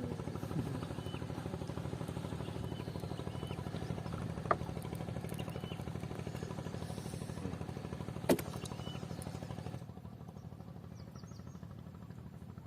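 A small engine running steadily with a fast, even pulse, fading somewhat about ten seconds in. Two sharp clicks cut through it, and short high chirps repeat now and then.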